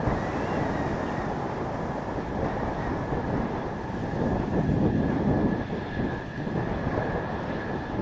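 Mitsubishi F-2 fighter's single F110 turbofan at taxi power: a steady high whine over a rough rumble, swelling louder for a moment about five seconds in, with strong gusty wind buffeting the microphone.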